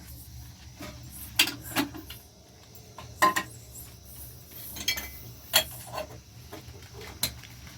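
Household objects clinking and knocking, with about six separate sharp strikes, some briefly ringing.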